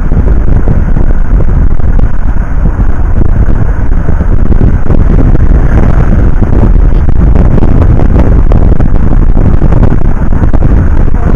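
Loud, steady wind buffeting the microphone over the low rumble of a moving vehicle.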